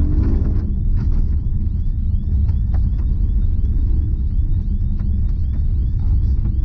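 In-cabin sound of a Porsche Cayenne Turbo Coupe's twin-turbo V8 driving at pace over a gravel road: a steady, loud low rumble of engine and tyres, with scattered sharp ticks of gravel hitting the car.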